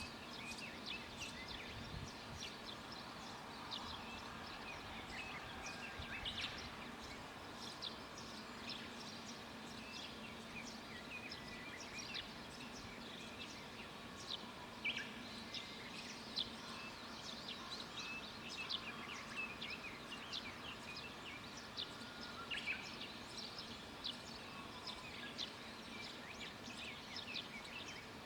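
Wild birds chirping and calling in many short notes, scattered throughout, over a faint steady low hum.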